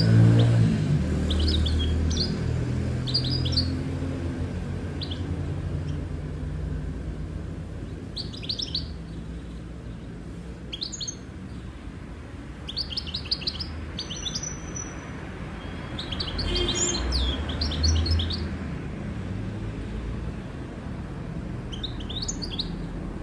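Canary chirping in short scattered bursts of high notes, with one held whistle about halfway through and a quick trill a couple of seconds later. A low rumble sits underneath, loudest at the start.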